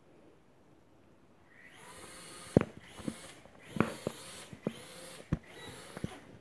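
Toy mini quadcopter's tiny propellers whirring up about a second and a half in, a thin high hiss that wavers as the throttle changes. Several sharp knocks break it.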